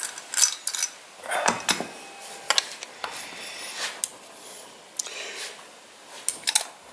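Irregular metal clinks, taps and short scrapes of a Holley carburetor and its parts being handled and worked on with hand tools.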